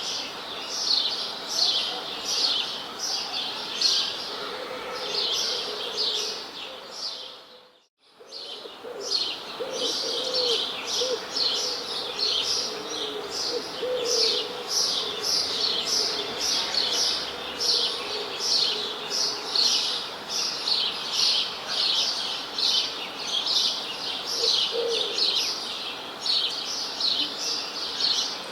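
Many small birds chirping rapidly and continuously, a dense chatter of short high notes. About eight seconds in, the sound fades out to near silence and straight back in, like the join of a looped recording.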